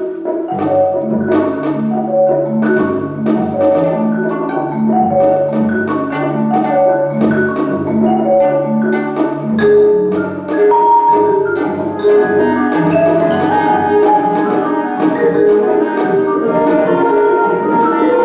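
Contemporary classical chamber ensemble of 25-string gayageum, flute, clarinet, horn, violin, cello and percussion playing, with many quick plucked or struck notes. A repeating low-note figure runs for about the first ten seconds, then gives way to longer held notes higher up.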